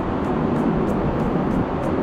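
Background music with a steady beat of high ticks about three times a second, over a dense, steady rushing noise.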